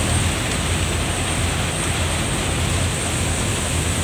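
Steady rush of churning wake water and the low drone of a fast passenger ferry's engines under way, with wind on the microphone.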